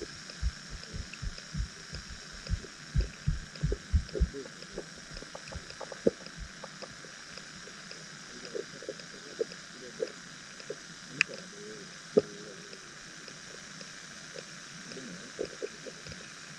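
Underwater sound from a submerged camera: a steady hiss, with a quick run of low thumps in the first few seconds and a few scattered sharp clicks and knocks later.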